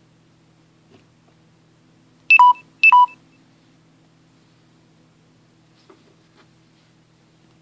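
Two short electronic beeps about half a second apart, each a higher tone dropping to a lower one, over a faint steady hum.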